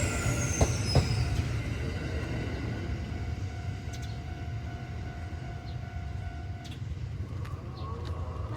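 Kintetsu 9820 series electric train running by and away, its low rumble slowly fading. A high whine falls in pitch in the first second, and two sharp wheel clicks on rail joints come about half a second and a second in.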